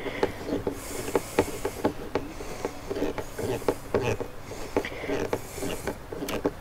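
Hand screwdriver turning a windshield mounting screw, snugging it into a rubber-sleeved mount: a run of irregular small metal clicks with some rubbing and scraping.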